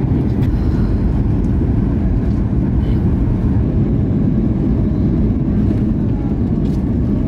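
Jet airliner cabin noise heard from a window seat: a steady, loud, low rumble of engines and rushing air.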